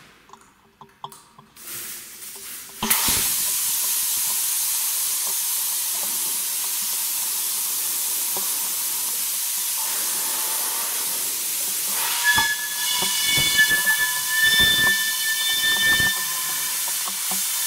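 Compressed air rushing out of a car tyre's valve as a tyre pumped to 7.5 bar is let down: a few small clicks at the valve, then a loud steady hiss that starts suddenly about three seconds in. From about twelve seconds a whistle joins the hiss, along with a few knocks.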